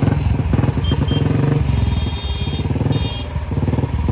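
Royal Enfield motorcycle's single-cylinder engine running at idle with an even, rapid thumping pulse. A few short high beeps, like vehicle horns, sound about a second in and again around the middle.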